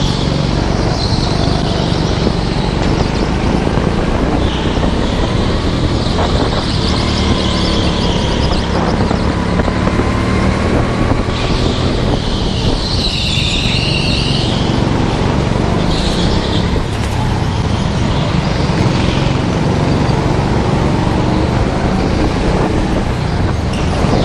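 Onboard sound of a racing go-kart at full pace: its engine running hard, rising and falling in pitch as the kart accelerates and slows for corners, with wind on the microphone. Several short bursts of high tyre squeal come through the corners, the loudest about halfway through.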